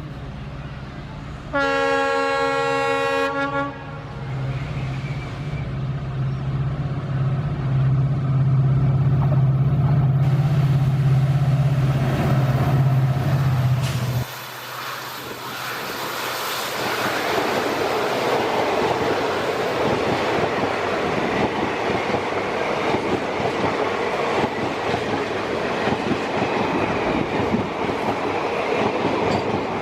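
ALCo diesel locomotive sounding its horn once for about two seconds, then its engine's low steady throb growing louder as it works. About fourteen seconds in, the sound changes abruptly to the rushing rattle of the train running along the track.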